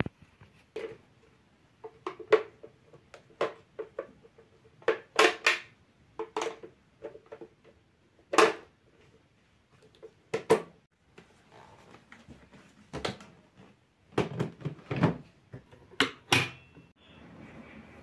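Plastic clicks and knocks from a bagless canister vacuum cleaner as its washed foam filter and clear dust container are handled.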